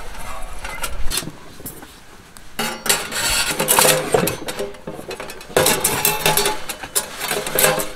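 Thin stainless-steel plates of a FENNEK folding BBQ grill clinking, scraping and rattling as they are handled and slotted together, with a sharp click about a second in.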